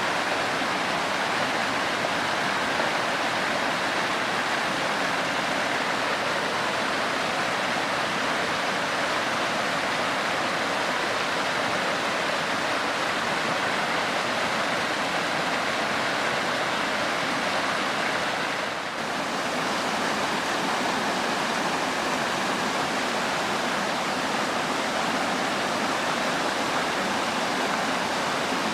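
Waterfall: water falling steadily onto rock, a continuous rushing noise, with a brief dip in level about two-thirds of the way through.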